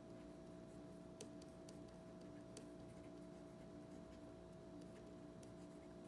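Faint scratching and light ticks of a 0.3 mm Uni Kuru Toga Advanced mechanical pencil writing on paper, over a steady low hum.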